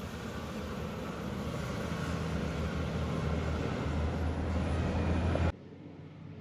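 Loaded tipper truck and dog trailer driving past, its diesel engine and tyres growing steadily louder; the sound cuts off abruptly about five and a half seconds in, leaving fainter traffic noise.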